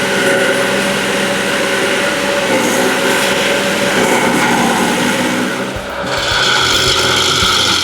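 Stump grinder running under load, its cutting wheel grinding into a tree stump: a steady engine tone under a rough rasp of wood being chewed. The sound shifts about six seconds in as the cut changes.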